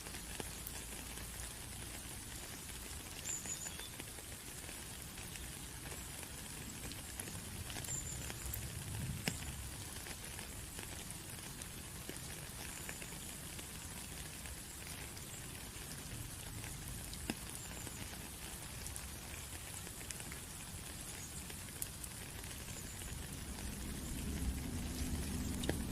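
Steady rain with scattered drops ticking. A low rumble builds near the end.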